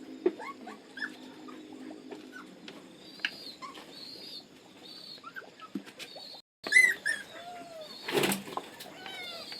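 Many short, high squeaks and chirps from small animals, some gliding up or down in pitch. A brief rustling noise comes near the end.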